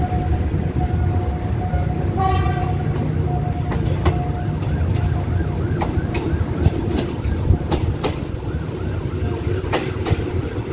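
Passenger train rolling slowly over a junction, heard from an open coach window: a steady rumble with wheels clicking over rail joints and short high squeals as it takes the right-hand curve.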